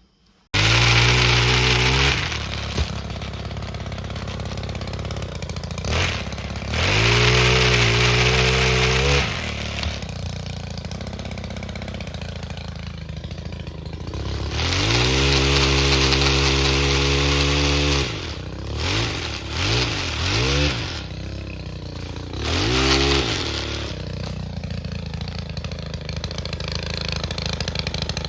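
An engine comes in suddenly about half a second in, then idles and is revved up several times: three long rises in pitch, a few quick blips, then one more short rev before it settles back to idle.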